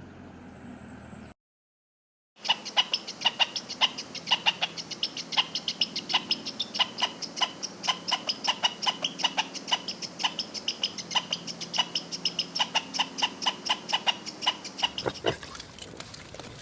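An animal giving a rapid, steady series of short, sharp high chirps, several a second. They start after a brief silence about two seconds in and thin out near the end.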